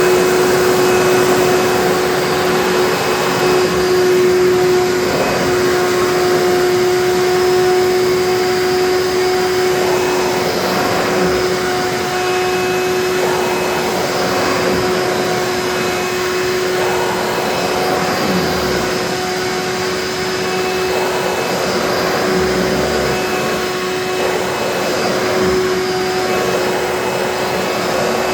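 Hoover bagless twin-chamber upright vacuum cleaner running at full speed with a steady motor whine, its airflow noise swelling and easing every three to four seconds.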